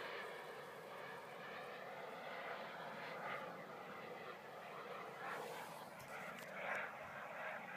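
Twin-turbine RC model F-14 jet flying at a distance. Its turbines make a faint, steady jet rush that swells a little as it passes.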